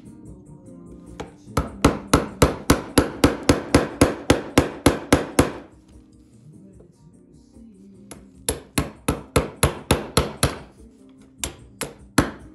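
Chisel struck repeatedly to chop out a mortise in wood, with sharp blows at about three a second. A run of about a dozen blows comes first, then a pause of a few seconds, then a run of about eight and a few more near the end.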